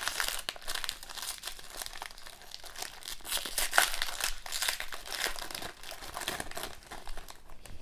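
Trading cards and their foil pack wrapper being handled, giving a steady crinkling with many small crackles.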